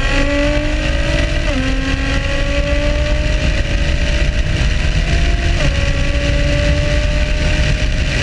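Car engine at full throttle under hard acceleration, its pitch climbing steadily and dropping suddenly at two upshifts, about a second and a half in and again about five and a half seconds in. A heavy low rumble runs beneath.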